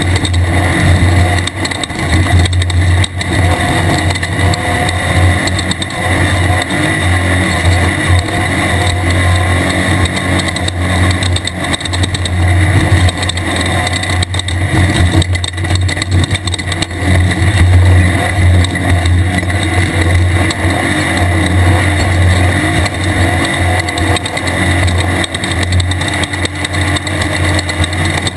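Air-cooled VW 1600 engine of a 1600-class desert race car running hard and continuously, a steady low drone with a few brief dips, under a loud rush of noise.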